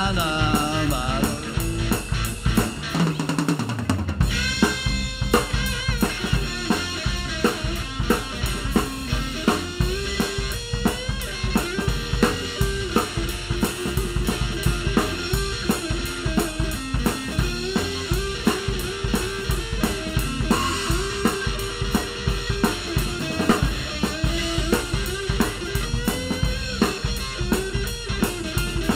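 A blues-rock band playing an instrumental passage with no singing: electric guitar and electric bass over a drum kit keeping a steady beat.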